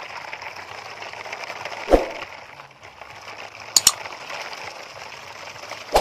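Sharp clicks over a faint steady hiss: one knock about two seconds in, then a quick double click near four seconds and another click at the end. The double click is the mouse-click effect of a subscribe-button animation.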